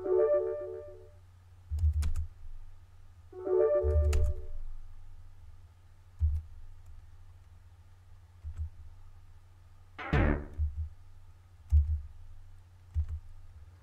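Background electronic music: short synthesizer chords every few seconds over low bass thumps, with one falling sweep about ten seconds in.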